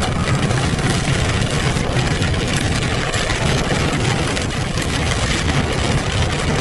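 Car driving on a wet road, heard from inside the cabin: steady engine and tyre noise.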